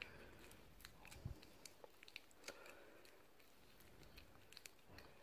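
Cat licking a creamy paste treat from a squeeze tube: faint, irregular wet tongue clicks and small mouth sounds, with one soft low bump a little after a second in.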